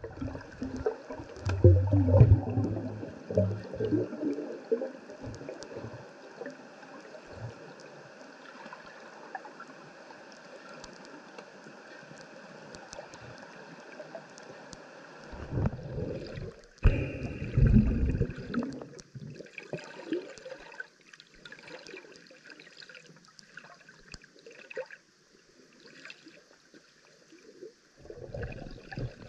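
Underwater ambience picked up through a camera housing: a steady wash of water noise with gurgling, and louder low rumbles of water movement about two seconds in and again around sixteen to eighteen seconds.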